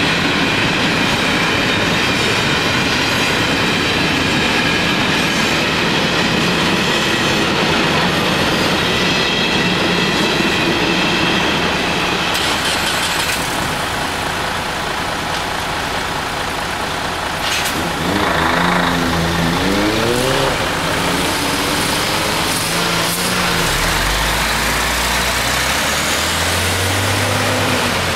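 Freight wagons rolling over a railway level crossing, with a high-pitched wheel squeal for the first dozen seconds. Then road traffic pulls away, engines revving up, and a lorry's diesel engine passes close near the end.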